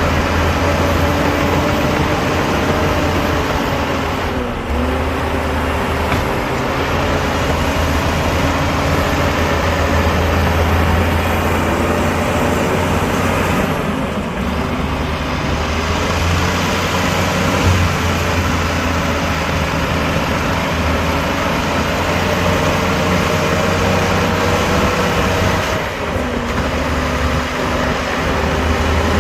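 Heavy diesel engine of earth-moving machinery running steadily, its pitch dipping and recovering briefly three times.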